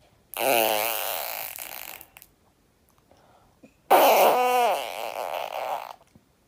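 Two loud, drawn-out fart sounds, each about two seconds long, the second starting about four seconds in. Both have a buzzing, wavering pitch over a breathy hiss.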